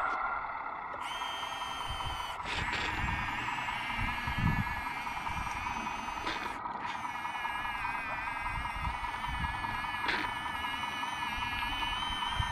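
Small electric motors on a scale RC wheel loader whining steadily in several tones as its mixing bucket's paddle shaft churns sand, with higher tones joining about one and two seconds in and a low uneven rumble underneath.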